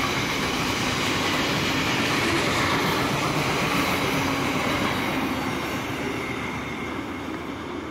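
Box wagons of a long freight train rolling past on steel rails, with a thin, steady wheel squeal over the rumble. The noise eases off through the second half as the tail of the train passes and draws away.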